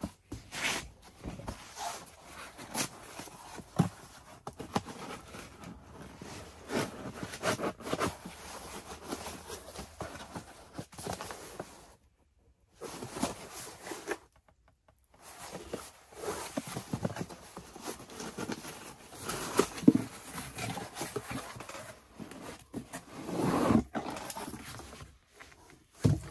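Cardboard box being handled and opened and a 6-inch stainless steel chimney pipe section taken out of it: irregular rustling, scraping and knocks of cardboard and thin metal. The sound cuts out completely twice for about a second near the middle.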